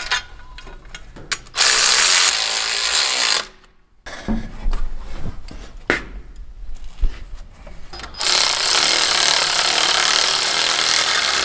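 Hercules cordless ratchet running in two long, steady bursts, a couple of seconds and about three seconds long, driving in the bolts of a steel AC bracket on a V8 engine. Metal clinks and knocks of the bracket being fitted come between the bursts.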